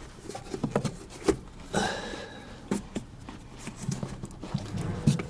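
Handling noises from greasing a shock absorber strut's rubber bump stop: scattered light knocks and clicks, with a brief rubbing scrape about two seconds in.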